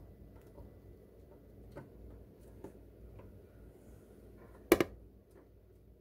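Faint scattered ticks and taps as a Siberian chipmunk moves about on a metal refrigerator top strewn with seed husks, with one sharp double knock about three-quarters of the way through.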